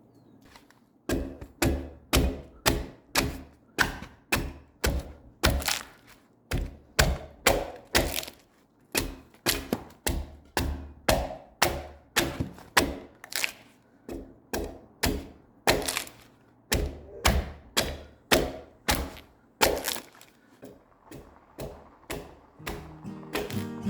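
Axe strikes into a freshly cut spruce log being hewed, a steady run of sharp thunks at about two blows a second that stops near the end.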